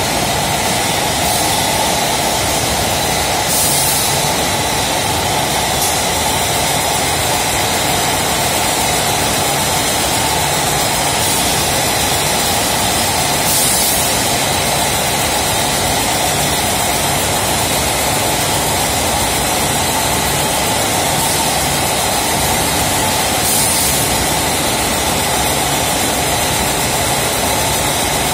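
Vertical form-fill-seal packaging machine running steadily with a loud, even mechanical noise. Short hisses come twice in each bagging cycle, about every ten seconds, matching its packing speed of six bags a minute.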